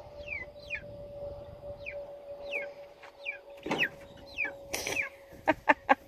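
Young meat chickens peeping: a string of short, high, falling peeps about every half second. Near the end comes a quick run of louder clucks.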